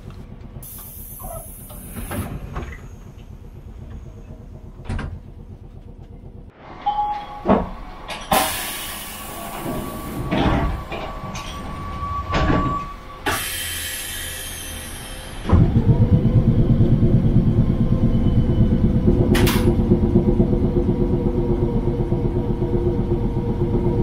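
Inside a Sapporo streetcar: a few clicks and knocks, then several bursts of hissing air, knocks and a steady tone while it stands at a stop. About two-thirds of the way in, the loud, rhythmic rumble of the tram's motors and wheels starts as it pulls away and runs on.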